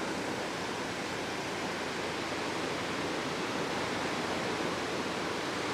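Steady rushing of ocean surf breaking on a beach, an even wash with no single wave standing out.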